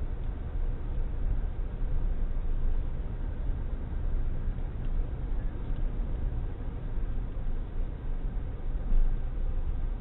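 Steady low rumble of a vehicle on the move: road and engine noise.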